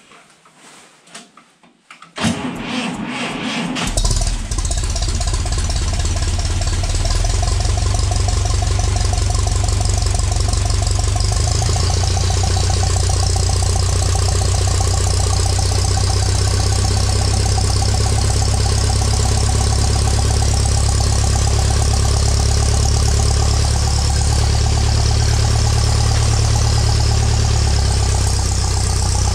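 1950 Ferguson TED20 tractor's four-cylinder petrol engine being started: after a few faint clicks, the starter cranks for about two seconds, the engine catches, and it settles into a steady idle.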